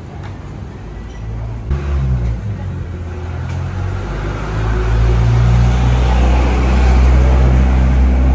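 A motor vehicle's engine running close by, a low steady rumble that starts about two seconds in and grows louder, loudest near the end.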